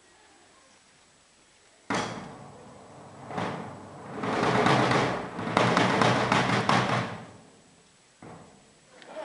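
Two large rope-tensioned wooden drums beaten with sticks: a single sharp hit about two seconds in that rings away, then a dense run of beats through the middle, and fresh hits starting near the end.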